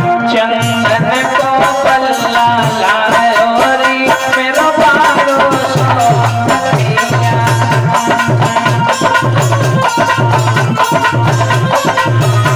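Indian folk devotional music: a hand drum keeps a steady repeating beat under a gliding melody line.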